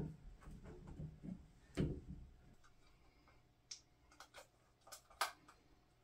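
Faint clicks and knocks of shower fittings being handled while a swivel bracket is fitted to the shower arm and the hose is readied, with a louder knock about two seconds in and a few sharp ticks near the end.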